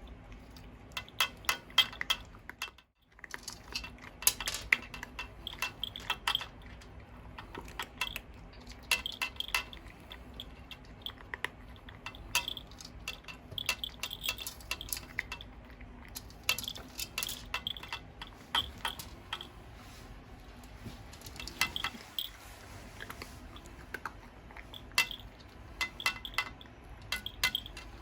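A pet crunching dry kibble, in quick runs of sharp crunches separated by short pauses, over the steady hum of a ventilation fan.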